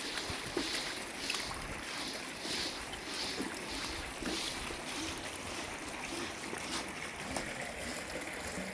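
Water sloshing and gurgling as a pool vacuum hose is pushed under the surface to drive the air out of it. Soft swishes come about twice a second through the first half, over wind on the microphone.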